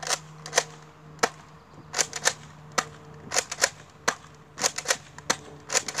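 Nerf N-Strike Elite Surgefire pump-action blaster being fired in normal mode, pumped and triggered shot after shot: a run of about a dozen sharp plastic clacks, some single and some in close pairs.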